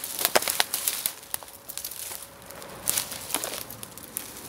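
Footsteps pushing through dry dead leaves and brittle dead stems, an irregular run of crackles, snaps and rustles.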